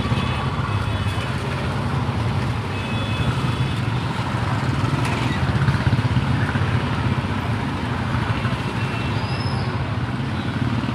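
A column of police motorcycles riding past in a steady stream, many engines together making a continuous low engine noise.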